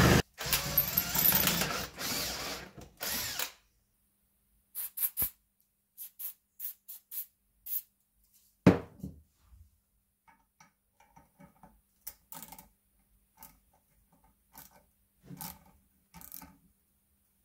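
Power drill drilling small holes in a blanking plate, running in short runs for the first few seconds. After that come scattered clicks and knocks of hand-tool work, with one louder knock about nine seconds in.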